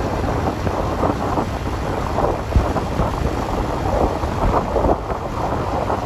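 Heavy wind buffeting the microphone of a moving motorcycle, a loud uneven rumble with gusty surges.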